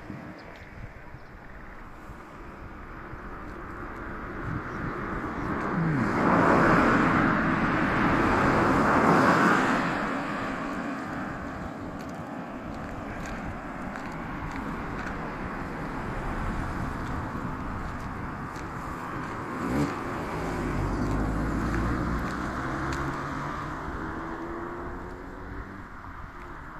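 Motor vehicles passing on the road. One passes loudly a few seconds in, with a rush of tyre and engine noise that builds and fades. Another passes with an audible engine note about two-thirds of the way through.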